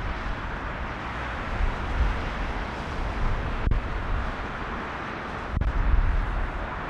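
Twin-engine jet airliner at takeoff power on its takeoff roll and rotation, a steady distant jet roar, with wind buffeting the microphone in gusts.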